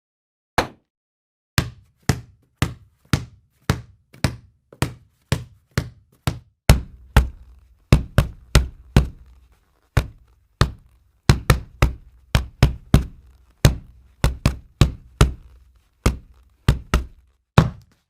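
A series of sharp knocks, roughly two a second in an uneven rhythm, each dying away quickly; from about seven seconds in they carry a deeper low thud.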